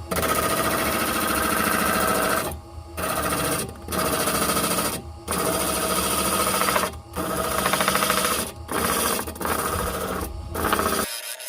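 Electric sander running while sanding a wood-and-resin pendant, with about six brief drops in the grinding sound as the piece comes off the abrasive while the motor keeps humming; the sander switches off sharply near the end.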